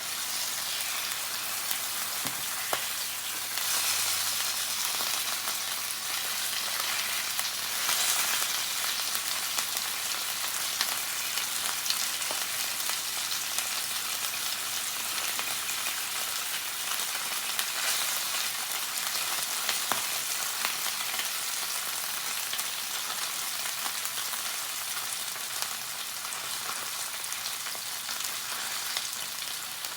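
Salmon frying in melted butter in a pan: a steady sizzle with scattered pops.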